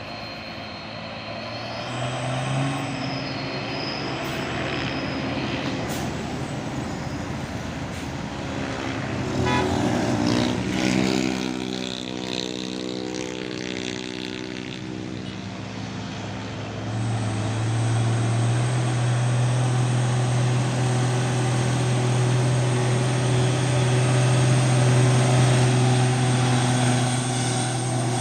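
Heavy diesel truck engines pulling up a steep grade under load. One vehicle passes with a shifting pitch about ten seconds in, and from about seventeen seconds a deep, steady engine note builds and grows louder.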